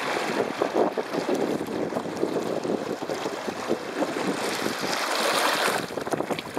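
Water rushing and splashing along the hull of a small MX-Ray sailboat under way through choppy waves, with wind buffeting the microphone. A louder rush comes about five seconds in.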